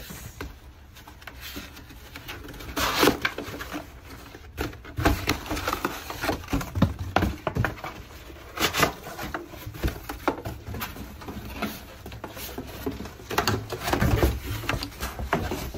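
Corrugated cardboard box being broken down by hand: flaps pulled apart and folded with irregular scraping, creaking and rustling, and several louder knocks of cardboard against cardboard.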